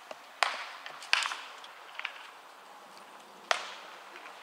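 Three sharp baseball impacts, each with a short echoing tail: the first two close together, the third a couple of seconds later.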